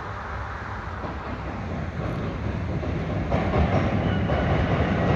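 Freight train rolling past with a steady rumble, its wheels clattering over the rail joints, growing louder as it comes nearer.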